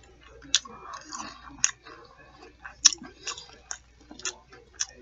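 Close-miked chewing of food, with sharp wet mouth clicks and smacks coming roughly every half second.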